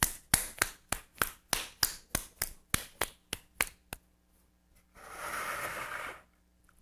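A lump of soft clay slapped and patted between bare hands, about three slaps a second, stopping about four seconds in. Then a hand dips into a bucket of water, a swish lasting about a second.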